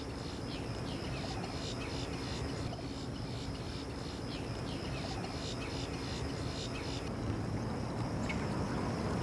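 Steady high-pitched insect drone with a run of short chirps, about three a second, over a low steady hum; the chirps and the hum stop about seven seconds in.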